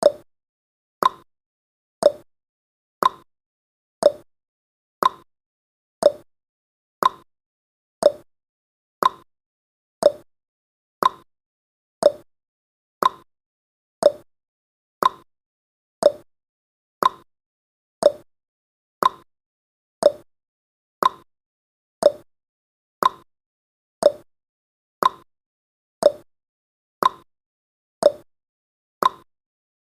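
Ticking sound effect of a countdown timer: one sharp tick every second, evenly spaced, each dying away quickly.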